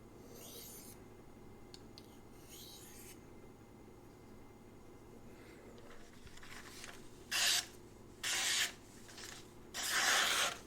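Knife edge scraping in a few short strokes: two soft ones early, then three louder ones near the end, as the last burr is taken off the edge.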